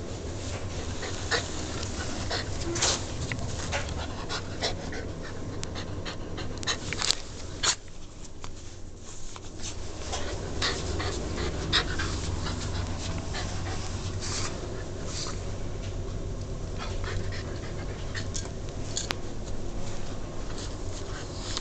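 Dog panting steadily, with frequent short rustles and scrapes as it roots through papers and bedding.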